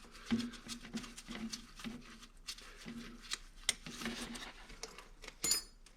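Scattered light clicks, taps and rubbing of nuts and tools being worked on a snowmobile's rear suspension mounting, with one sharper metallic clink that rings briefly near the end.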